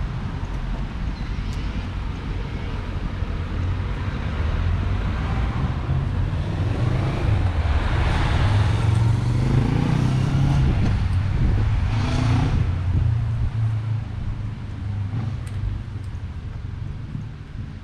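Street traffic: a steady low rumble of cars on the road, swelling as a car drives past in the middle and fading again towards the end.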